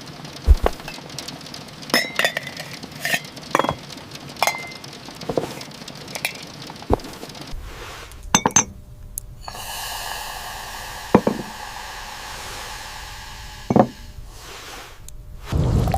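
Kitchen dishes and utensils clinking and knocking, a dozen or so separate strikes, then about six seconds of steady rushing noise with two more knocks in it.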